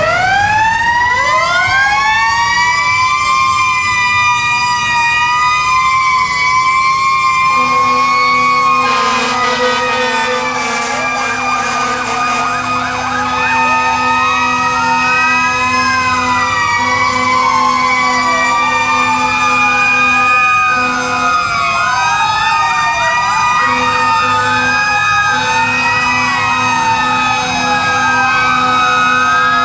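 Several fire truck sirens sounding together. One winds up from low to a high held pitch at the start and a second follows a moment later. From about a third of the way in, others wail up and down over one another, with a steady low horn tone sounding in long stretches beneath.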